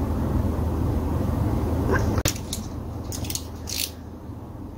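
A steady low rumble that cuts off abruptly about two seconds in. It is followed by a few light clicks and a short scraping rustle as small chainsaw carburetor parts are handled.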